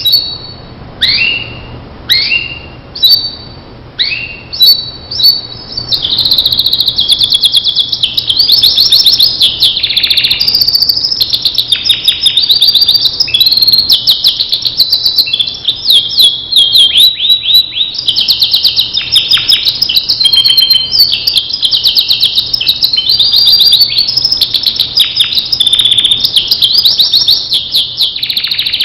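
Domestic canary (Starblue strain) singing. For the first few seconds it gives short separate chirps about once a second, then breaks into a continuous fast song of trills and rolls.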